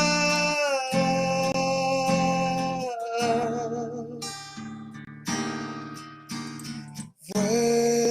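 Acoustic guitar strumming under a singer who holds out a long note for about four seconds, wavering at its end. Then the guitar strums on with short breaks, and a new sung note starts near the end.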